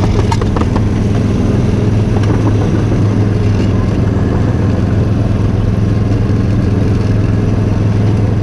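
Miniature ride-on train's motor running steadily as the train travels along its track, with a few light clicks near the start.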